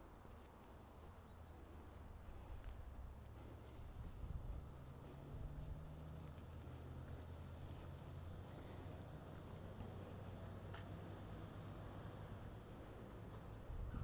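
Faint outdoor ambience: a steady low rumble with scattered short, high chirps.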